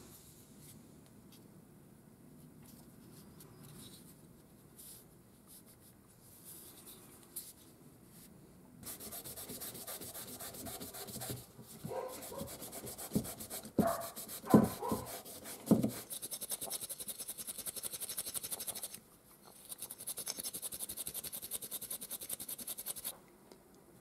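A Scotch-Brite abrasive pad scrubbing small brass parts in fast back-and-forth strokes, a scratchy rubbing that starts about nine seconds in and pauses briefly near the end. A few louder knocks come partway through.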